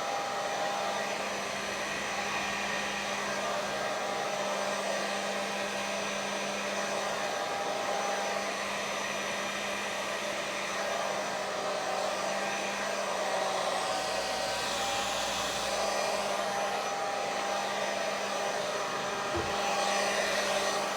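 Hair dryer with a diffuser attachment running steadily on drying hair, a constant airflow rush with a low steady hum.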